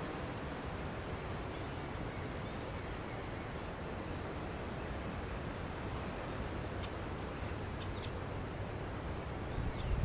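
Faint, short high chirps of small birds, repeating irregularly every half second or so over a steady outdoor hiss. A low bump comes near the end.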